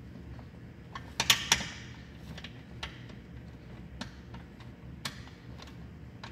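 Scattered light clicks and clinks of hand tools and small parts being handled, irregular rather than rhythmic, with a sharper cluster of clicks about a second in.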